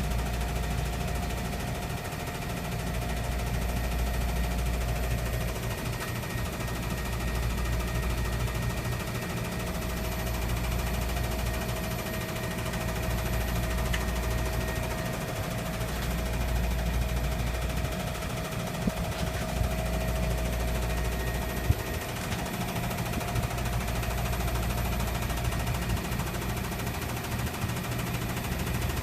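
Air conditioner outdoor unit running with an abnormal noise: a steady hum and whine, with a low drone that swells and fades every few seconds. A couple of sharp clicks come about two-thirds of the way through.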